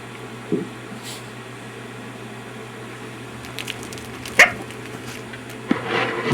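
Patagonian conure giving a single sharp, brief call that slides down in pitch about four seconds in, followed near the end by a short rasping sound, over a steady low hum.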